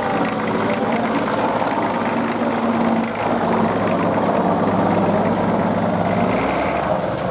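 Vintage Fordson tractor's engine running steadily as the tractor drives past at close range and moves away, with an even, unchanging engine note.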